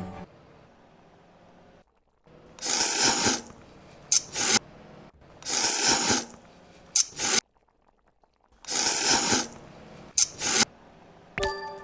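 Close-miked eating sounds: wet, noisy bursts about a second long, roughly every three seconds, with short clicks in between.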